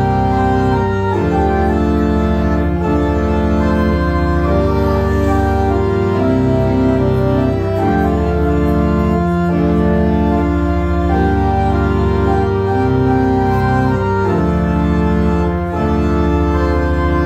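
Kimball theatre pipe organ playing full sustained chords over a deep bass, the chords changing every second or two.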